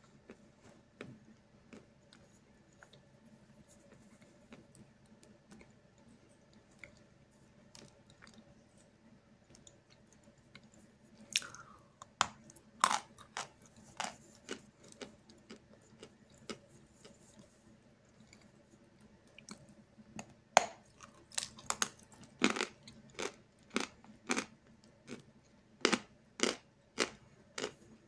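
A mouthful of Snezhok edible chalk being chewed close to the microphone. Quiet soft mouth clicks for about the first ten seconds, then sharp dry crunches, a few at first and then a steady run of about two a second in the last third.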